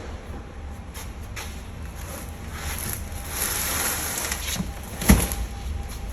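A single sharp thump about five seconds in, after a stretch of rustling or scraping noise, over a steady low rumble.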